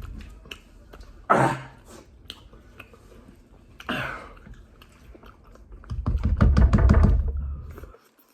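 Someone eating very spicy wings: chewing and mouth noises, two short loud vocal outbursts about a second in and again about four seconds in, then about two seconds of loud low rumbling and rapid clicking close to the microphone that cuts off near the end.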